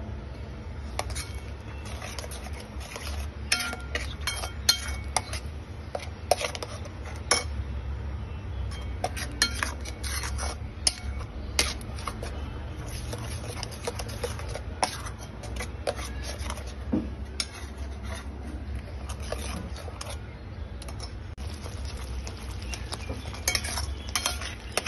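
Flat steel spatula scraping and clinking irregularly against a steel pot while stirring thick, cooking tomato masala, over a steady low hum.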